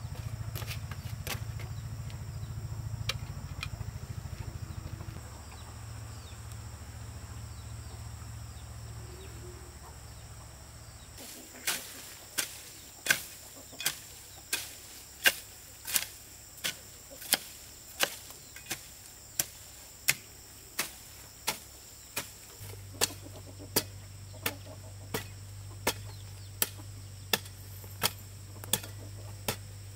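A hoe chopping into dry soil, with sharp strikes repeating steadily about one and a half times a second from about a third of the way in. Before the digging starts there is only a steady low hum.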